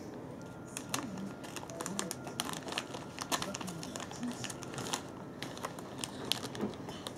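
Plastic snack packet crinkling in a small child's hands as she rummages in it and pulls out a piece: irregular sharp crackles.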